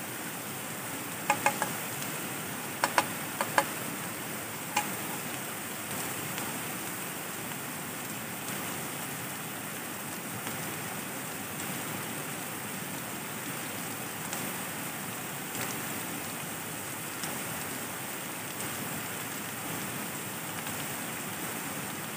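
A metal fork clinks against a frying pan several times in the first five seconds, with a few fainter taps later as the food is stirred. Under it runs a steady rushing hiss.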